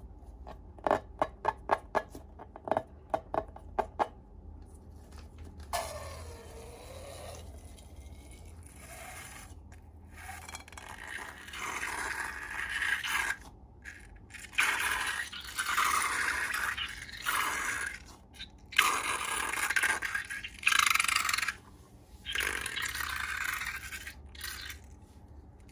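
Slime being worked by hand: a quick run of about a dozen sharp, sticky clicks, then repeated noisy stretches of working and scraping, each a second or two long with short pauses between.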